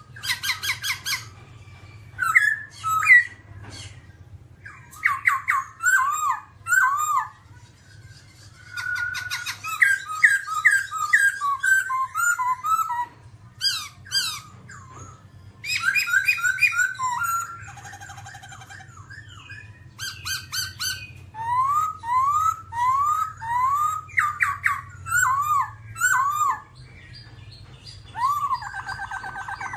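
Black-throated laughingthrush singing loudly: runs of rising whistled notes repeated several times in a row, mixed with rapid, harsh chattering phrases, with short pauses between bursts.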